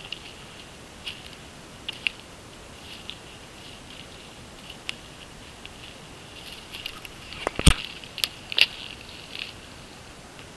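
Footsteps crunching through dry twigs and fallen branches while stepping over deadfall, with scattered crackles and a cluster of sharp twig snaps about three-quarters of the way through.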